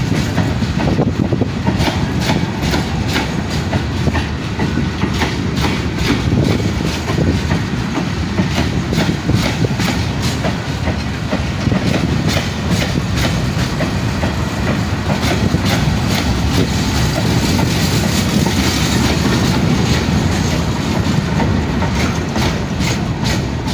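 Hopper wagons of a coal freight train rolling past: a steady heavy rumble of steel wheels on rail, with frequent sharp clicks and clanks as the bogies pass over the rail joints.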